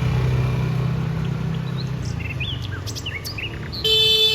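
A low engine rumble fades away over the first two seconds while small birds chirp. Near the end a loud, steady, horn-like tone starts abruptly.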